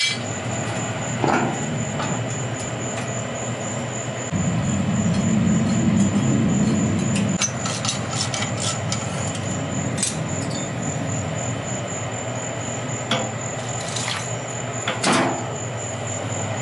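Scattered metal knocks and clinks of hand tools as the mowing deck is bolted under a vintage Rugg riding mower, over a steady low hum that grows louder for a few seconds a little after the start.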